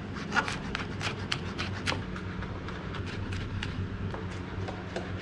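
Chef's knife chopping garlic on a plastic cutting board: a run of quick, irregular knocks, a few a second.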